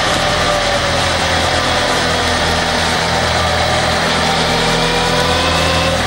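Kawasaki ZRX motorcycle's inline-four engine running at a steady cruise, its pitch sagging a little and then climbing again near the end, under a constant rush of wind and road noise.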